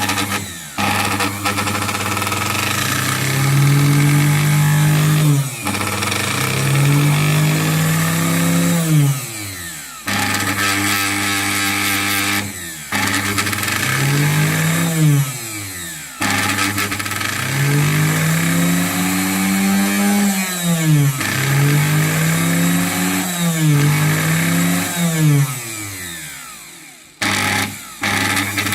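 Singer 431G sewing machine's electric motor run repeatedly, speeding up and slowing down about seven times, its whine falling as it spins down, over a steady hum. This is the motor noise the owner finds odd.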